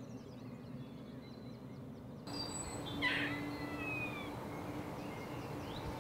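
An unseen animal in the treetops gives a cat-like mewing call about three seconds in, then a couple of fainter falling calls. The listener guesses it is a young bird of some kind. Faint chirps of small birds come before it.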